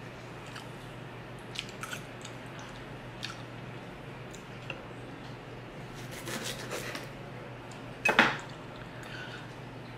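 Steel knife and fork cutting a steak on a wooden board: scattered light clicks and scrapes, a denser run of cutting strokes past the middle, and the loudest knock about eight seconds in, with wet squishing of the meat and chewing in between.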